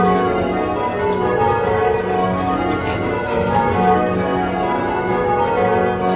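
A ring of eight church bells, all cast by Taylors in 1925 with a 14 cwt tenor in F sharp, change ringing: the bells strike one after another in quick, even succession, each note ringing on under the next.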